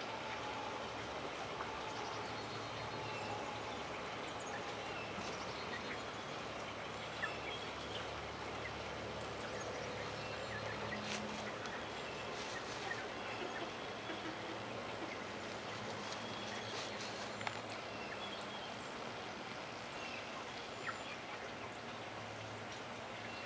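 Steady outdoor background noise with faint, scattered bird chirps and a few small clicks.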